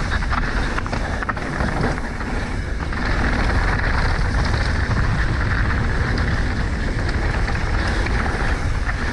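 Wind rushing over the camera microphone and mountain bike tyres rolling over a dirt trail while riding downhill, a steady loud rumble with a few short knocks and rattles.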